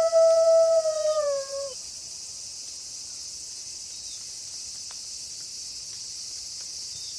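A wolf howling on one steady pitch, then sliding down and breaking off about a second and a half in. Underneath, a steady high-pitched insect chorus continues.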